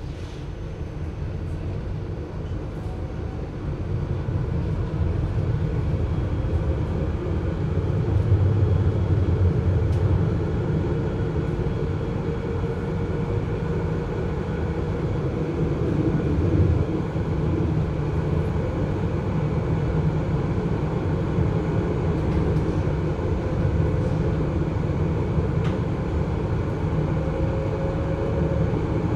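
GT6M low-floor tram running, heard muffled: a steady low hum with a faint whine that drifts slightly in pitch, getting louder over the first few seconds.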